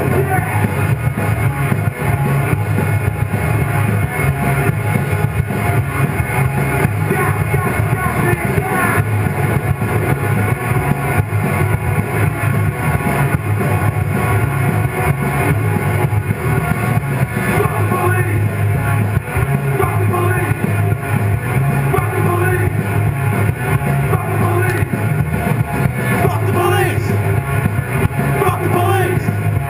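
Loud rock music with a male singer, guitars and drums, playing steadily.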